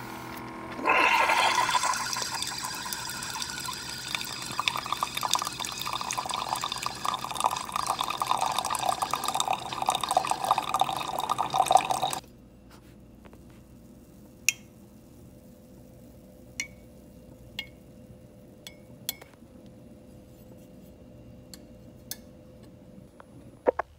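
Keurig single-serve coffee maker brewing: starts about a second in and runs for about eleven seconds with a hissing, sputtering stream of coffee pouring into a mug, then cuts off suddenly. A faint hum with a few sharp drip ticks follows.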